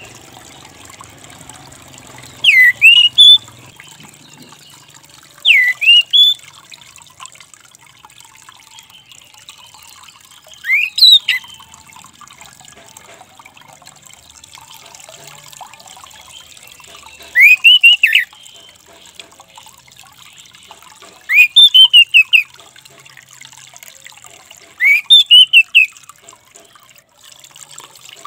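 Orange-headed thrush giving short, loud, upward-sweeping call notes six times, every three to six seconds.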